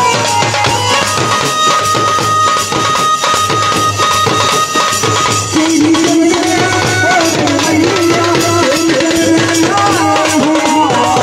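A desi banjo-party band plays loud folk music: drums and jingling percussion beat a fast, steady rhythm under a melody line. About halfway in the melody settles into a held, wavering tune.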